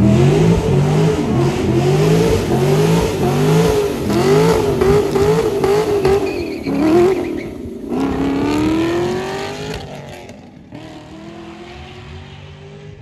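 Performance saloon car's engine revved hard as it pulls away, its pitch climbing and dropping about once a second for several seconds, then rising in one long sweep as it accelerates off before fading away.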